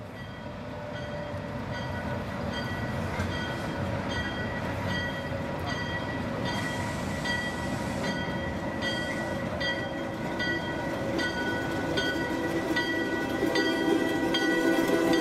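PeruRail diesel locomotive rolling slowly into a station with its engine running and a bell ringing about every 0.8 seconds. The sound fades in at the start and gets louder near the end as the locomotive passes close by.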